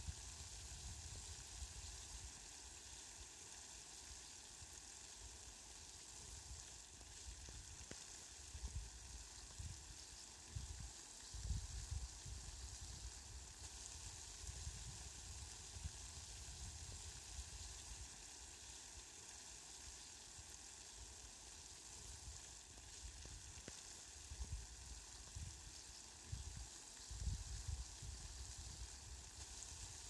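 Steady, faint hiss of fine water drops falling on petunia leaves and grass, with a few low rumbles a little over ten seconds in and again near the end.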